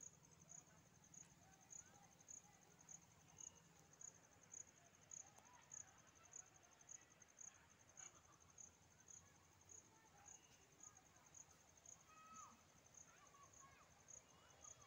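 An insect chirping: a steady rhythm of short, high-pitched pulses, about two a second.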